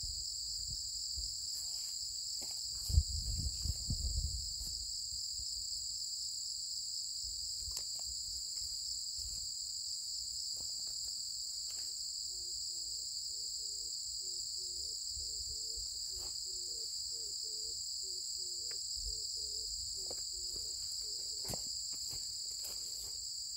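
A steady chorus of insects, trilling at two high pitches without a break. About three seconds in there is a brief low thump and rumble.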